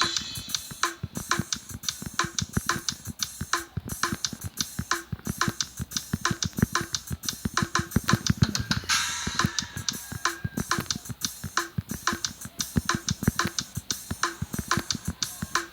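Drum kit playing a fast, steady forró groove, with a cymbal crash about nine seconds in.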